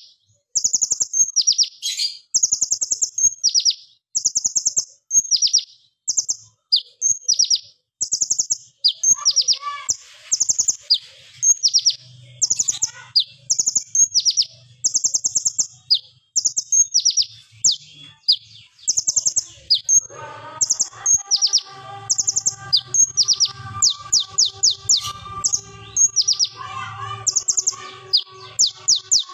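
Copper-throated sunbird (kolibri ninja) singing: short, loud bursts of very high, rapid-fire repeated notes, roughly one burst a second. About two-thirds of the way in, a quieter steady drone of several held tones and a low hum joins underneath.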